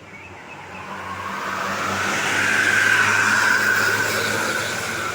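A tour bus driving past: engine and tyre noise swell to a peak about three seconds in, then fade away.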